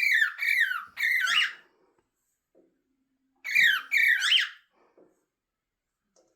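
Pet parrot calling from its play stand: a quick run of three high calls, then a pause of about two seconds, then two more, some notes sliding up in pitch at the end.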